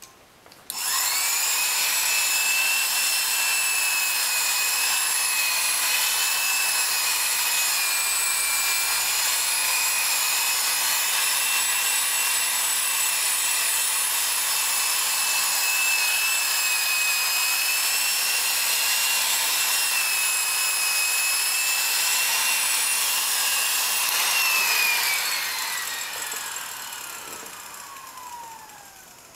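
Electric power polisher with a foam buffing pad whining at a steady high speed as it buffs polishing compound on a lacquered wood panel. It switches on about a second in, and near the end it is switched off and winds down with a falling pitch.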